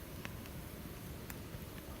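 Wood fire crackling in a Picogrill fire pit: a couple of sharp pops over a low, steady rushing noise.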